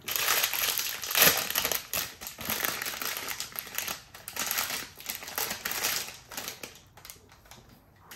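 A thin plastic wrapper crinkling as it is torn open and peeled off a frozen fruit sorbet. The crackling is loudest about a second in and dies away near the end.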